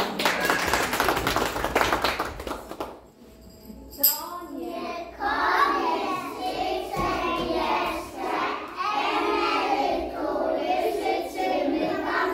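A group of children singing a song together, starting about five seconds in. Before that there are a few seconds of dense rattling noise and a short lull.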